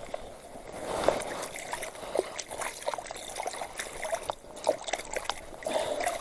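Water splashing and trickling, with many small irregular splashes.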